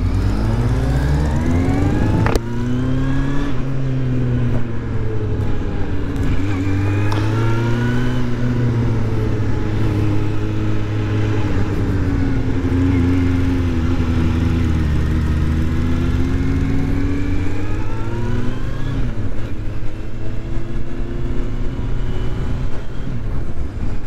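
Motorcycle engine under way, heard from the rider's helmet-mounted camera: the revs climb while pulling away, a gear change about two seconds in, then the pitch keeps rising and falling with the throttle over low wind noise.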